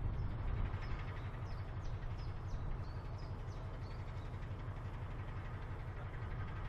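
A Colas Rail Class 70 diesel locomotive (GE PowerHaul V16) idling at a standstill, a steady low rumble. A small bird sings a quick run of short high chirps from about one to four seconds in.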